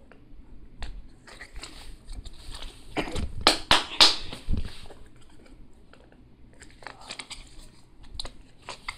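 Small cardboard product box being squeezed and pried at by hand: crinkling, scraping and clicking of the cardboard, loudest in a cluster of sharp scrapes around the middle.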